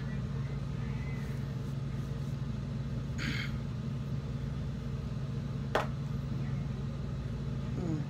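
A steady low mechanical hum runs throughout, with a short hiss about three seconds in and one sharp click near six seconds.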